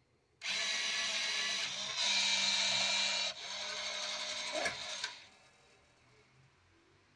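Smiley NV9 USB banknote acceptor's transport motor whirring in several stages for about five seconds, with a couple of sharp clicks near the end before it stops suddenly: the acceptor's start-up cycle, with no note counted.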